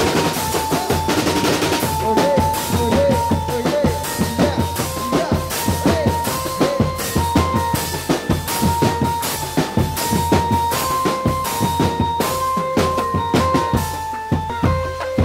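Drumband playing for a Singo Barong tiger-mask troupe: bass drums and other drums beating a dense, fast rhythm, some strokes bending in pitch, under a melody of held notes. Heavy rain pours on the tarp overhead.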